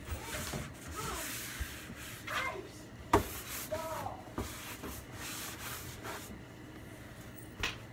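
Hand wiping and scrubbing the inside of a kitchen cabinet under the sink, a steady rubbing, with a sharp knock about three seconds in and another near the end.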